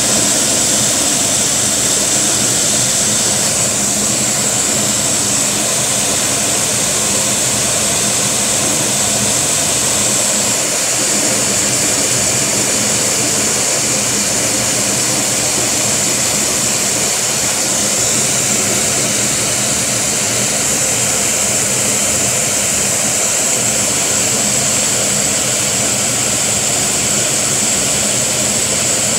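Lego vacuum engine running at a very low idle, its flywheel turning steadily, under the loud, steady rush and high whine of the vacuum cleaner suction that drives it.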